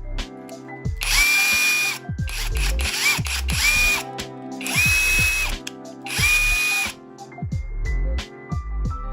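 DEKO 350 Nm cordless impact wrench run with no load in about five short trigger pulls, its motor whining up to a steady pitch and winding down each time.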